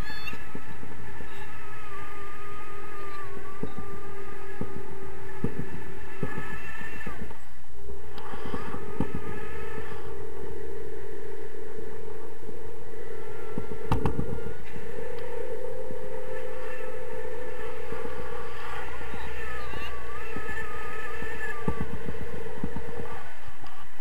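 Wind rushing and buffeting over an action camera's microphone in paraglider flight, a constant rumble with a steady hum that steps up slightly in pitch about eight seconds in.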